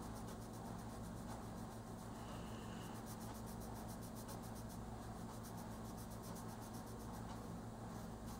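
Oil-based colored pencil scratching on a coloring-book page in quick, light back-and-forth strokes, filling in a leaf. A faint steady hum runs underneath.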